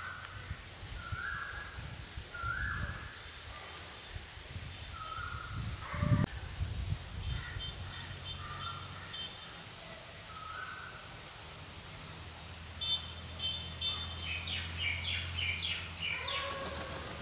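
Evening outdoor ambience: a steady high-pitched insect drone, like crickets, with birds giving short repeated calls and a busier cluster of chirps near the end. A low hum sits underneath, and there is one brief knock about six seconds in.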